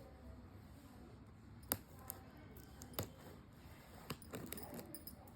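Light, scattered clicks and taps from handling a box of biscuits and its packaging, about half a dozen sharp ticks a second or so apart, the first the loudest.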